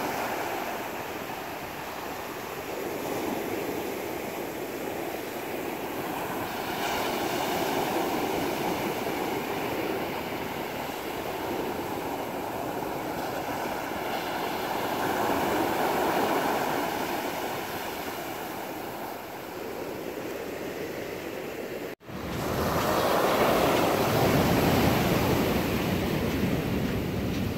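Waves surging and washing over a rocky shore, the rush swelling and easing every several seconds, with wind on the microphone. There is a brief dropout just after twenty seconds, then a louder surge.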